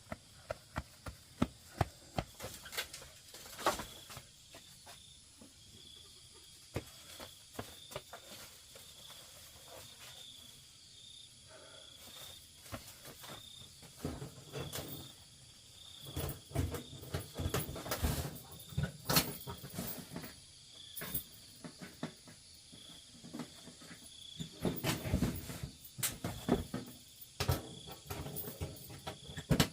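Insects, likely crickets, chirping steadily in a fast even pulse, over scattered sharp clicks, knocks and rustles that grow busier in the second half.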